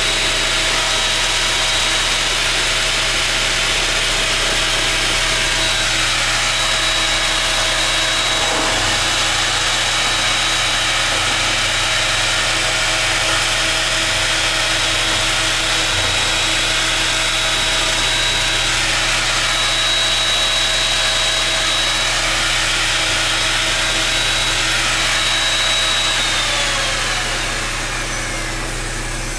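Wood router on a homemade floating-router lathe copier running at speed and cutting a rough, wet green spruce 4x4 as it turns: a steady high whine over cutting noise. In the last few seconds the motor winds down, its pitch falling.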